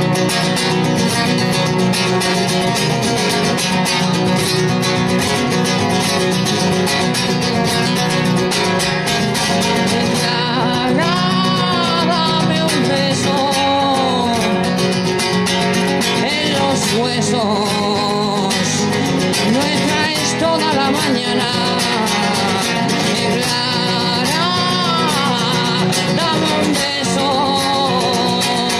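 Acoustic guitar strummed steadily by a solo performer, joined about ten seconds in by his male singing voice, which carries on over the strumming.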